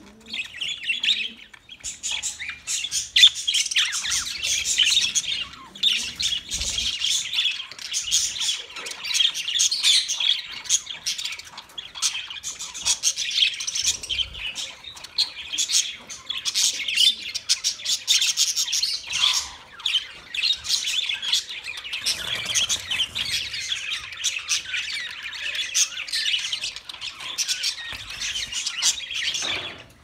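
A flock of budgerigars chattering continuously, a dense mix of many overlapping high chirps and calls.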